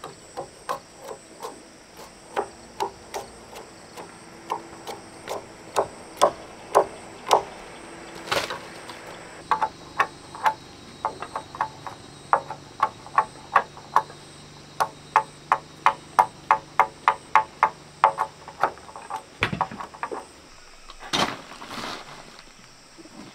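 Repeated sharp knocks of a tool striking wooden poles, first about one a second, then quicker and regular, about two to three a second, in the second half. A steady high insect drone runs underneath.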